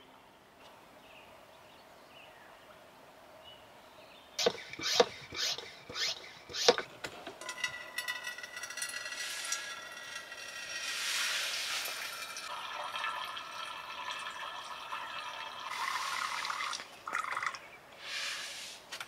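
A few sharp clacks of handling, then water running from a camp water jug's spigot and splashing into a stainless steel cup for several seconds.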